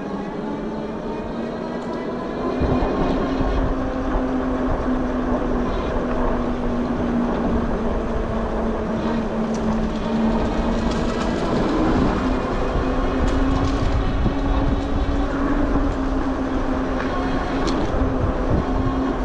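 Sondors Fold X electric bike's hub motor whining steadily under power, its pitch and loudness stepping up a couple of seconds in as the bike speeds up. Underneath are a low rumble of tyres and wind on the microphone and a few light clicks.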